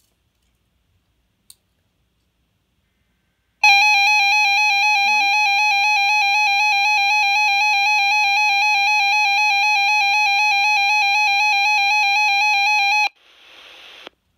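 RadioShack 12-521 weather radio sounding its alert alarm for a Chemical Hazard Warning: a loud, steady, slightly wobbling electronic tone that starts about four seconds in, lasts about nine seconds and cuts off abruptly, followed by about a second of radio static hiss.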